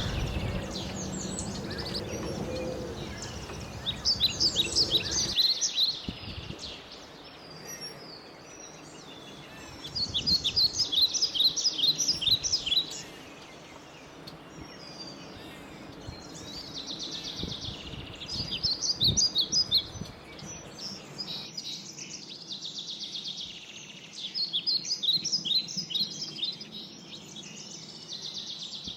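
A songbird singing: four phrases of quick, high notes, each a couple of seconds long and several seconds apart, over a steady background hiss, with a low rumble under the first few seconds.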